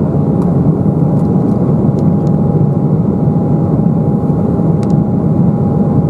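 Steady cabin noise of an Embraer 195 jet airliner in flight: the constant low rush of airflow and its two GE CF34 turbofan engines. A thin steady tone sets in at the start and holds, with a few faint ticks.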